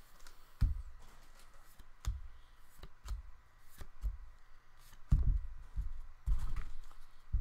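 Handling noise from trading cards and their wrappers on a table: scattered soft knocks and light clicks, about one a second.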